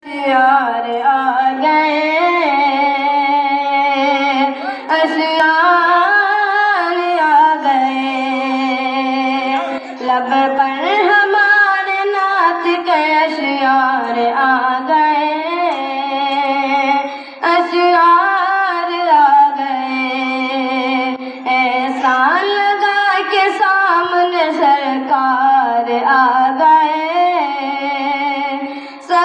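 A boy singing solo and unaccompanied into a microphone: one melodic, ornamented line with long held notes and short breaths between phrases.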